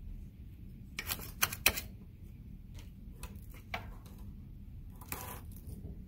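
Light clicks and taps from handling a small circuit board and soldering iron on a silicone work mat: a quick cluster of sharp clicks about a second in, a few softer taps after, and a short hiss near the end.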